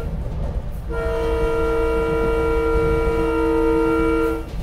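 Train air horn sounding one long chord of about three and a half seconds, starting about a second in, over the steady low rumble of a train.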